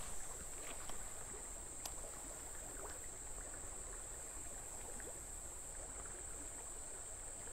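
Faint creek-side ambience: a shallow stream running under a steady, high-pitched insect buzz, with a few faint clicks.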